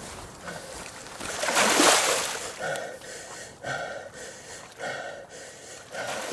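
A man breathing inside a gas mask: a loud gasping breath about a second and a half in, then quick breaths about one a second.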